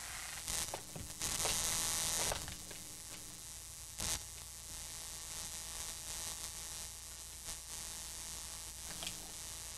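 Audio cables and plugs being twisted, pulled out and pushed back in: bursts of crackling, scratchy handling noise, the longest lasting about a second near the start, with clicks later. Under them runs a steady low hum and hiss, the bad cable noise on the microphone line that is being traced.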